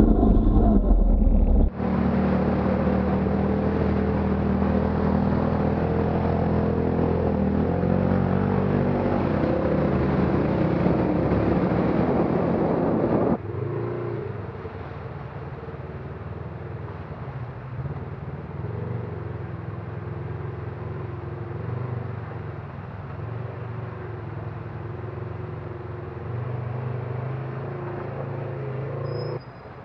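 Off-road vehicle engines in a run of cut-together clips. First an engine runs loud with changing throttle for about twelve seconds. It cuts off suddenly to a quieter side-by-side UTV engine running at low revs as the machine crawls through a shallow rocky creek, its revs swelling and easing.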